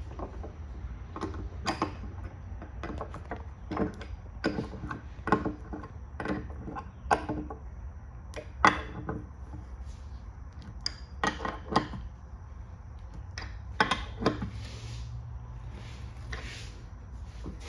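Metal clamp hardware clicking and clinking irregularly as the tooling clamps are handled and tightened along a glue joint, over a steady low hum.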